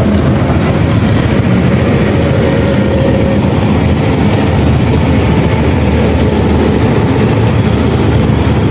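A motor vehicle engine running steadily with a constant low drone.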